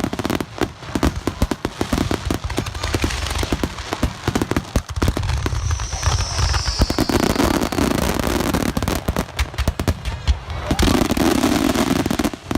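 Aerial fireworks bursting at close range: a dense run of sharp crackling bangs over a deep rumble. A high whistle falls in pitch about six seconds in.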